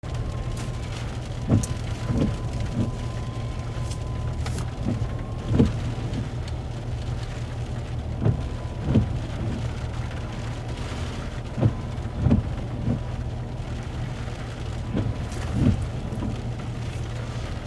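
Rain falling, with irregular louder knocks of drops landing close by, about one or two a second, over a steady low rumble. A faint thin steady tone comes and goes.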